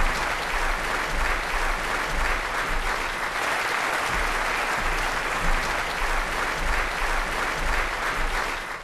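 Large audience applauding steadily, a dense crowd of hands clapping that cuts off abruptly at the very end.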